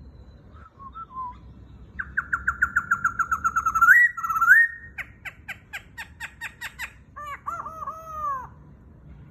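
Black-throated laughingthrush singing: a fast trill of rising notes that ends in an upward slur and a short held high note, then a run of sharp clipped notes, and a few downward-arching whistles near the end.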